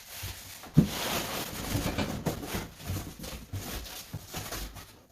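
Cardboard boxes being handled: one sharp thump, then a few seconds of cardboard scraping and rustling with small knocks as a box is moved and cleared out.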